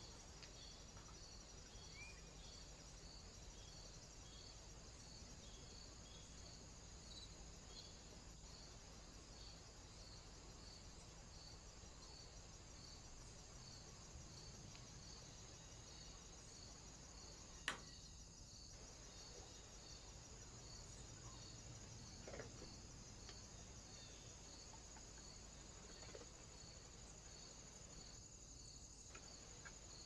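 Near silence: a faint, steady high-pitched hiss with small regular pulses, and one sharp click about two-thirds of the way through.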